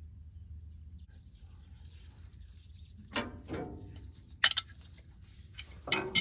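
Sharp metallic clinks of wrenches against the excavator's hydraulic hose fittings, once about four and a half seconds in and again near the end, over a low steady hum.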